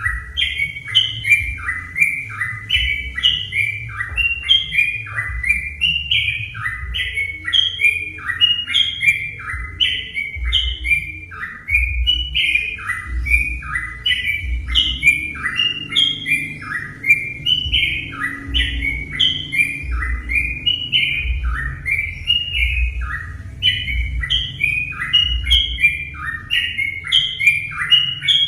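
Yellow-vented bulbul (trucuk) singing: short bubbling, chirping phrases repeated about two to three times a second without pause, the kind of song used as a lure to set other birds singing.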